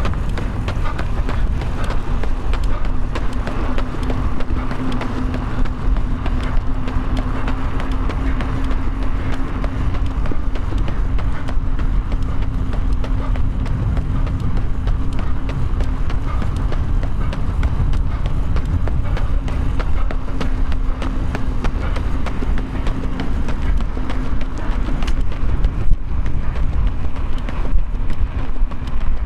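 Running footsteps at race pace with wind buffeting the microphone, over a steady low hum.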